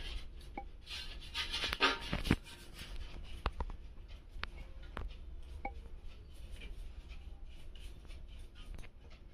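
Hand rubbing and brushing dust off a stationary ceiling fan's metal blade: a scratchy rustle, loudest in the first couple of seconds, with several sharp clicks in the first half, then quieter rubbing.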